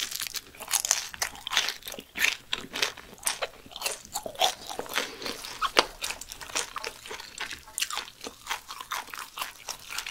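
A person biting into and chewing crisp battered fried pork (guobaorou): many sharp, irregular crunches, several a second.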